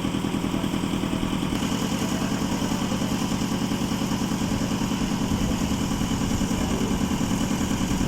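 Concrete mixer's engine running steadily with a fast, even beat; a higher rattling noise joins about a second and a half in.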